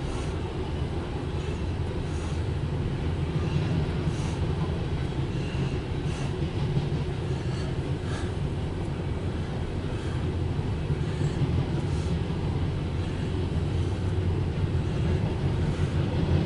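Loaded coal train of hopper cars rolling past on the rails: a steady low rumble, with faint clicks every couple of seconds as the cars pass over the track.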